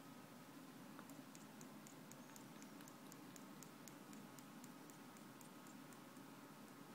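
Sleeping kitten's mouth clicking faintly and rapidly, about four or five small clicks a second starting about a second in, as its jaw and lips twitch in a dream; otherwise near silence.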